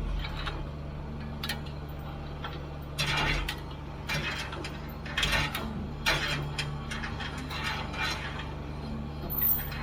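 Heavy equipment's diesel engine running steadily, with irregular metallic clanks and creaks every second or so as the machinery strains and shifts.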